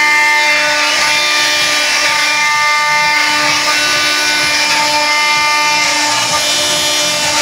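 Homemade CNC wood router running: a steady high whine from the spindle, with tones that shift every second or so as the stepper motors drive the axes.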